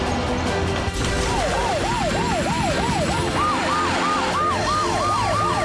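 Emergency vehicle sirens wailing in a rapid rising-and-falling yelp, about two and a half sweeps a second, starting about a second in. A second, higher-pitched siren joins about halfway through, over background music.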